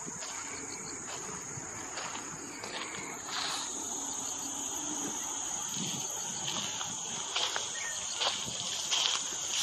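Insects chirring in one steady high-pitched trill, with a walker's footsteps sounding at an irregular pace.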